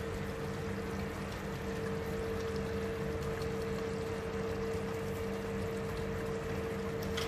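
Curry simmering in a steel pot on an electric hob: a steady watery hiss with a constant hum underneath.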